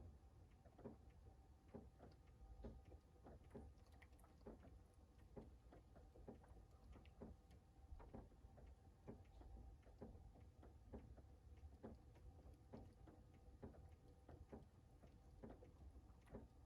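Faint rain, with single drops tapping irregularly about two or three times a second over a low steady rumble.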